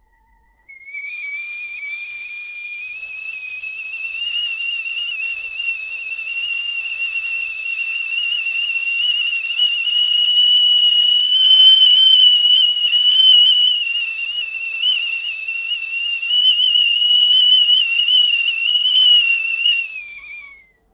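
Tea kettle whistling as the water boils: one long, slightly wavering whistle that starts about a second in, climbs slowly in pitch and loudness, and falls in pitch as it dies away near the end.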